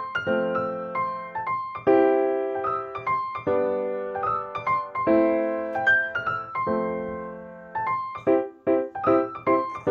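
Background piano music: soft chords struck about every second and a half, each fading away, then quicker repeated notes near the end.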